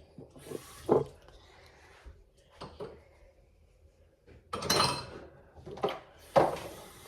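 Objects being handled and set down on a hard surface: a few scattered knocks and clatters, with a short rustling burst nearly five seconds in and the loudest knock soon after.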